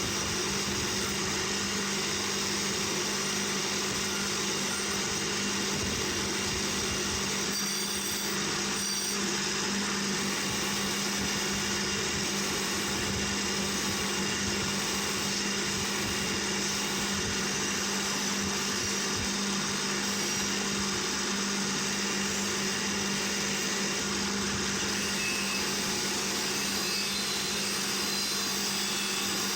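Handheld power tool running steadily at constant speed, a steady hum under an even hiss.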